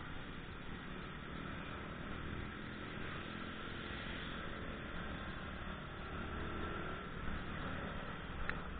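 Small motorcycle being ridden at road speed: its engine running steadily under wind and road noise on the microphone, with one sharp click near the end.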